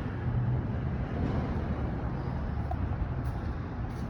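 Steady low mechanical hum with a noisy wash over it, from running machinery.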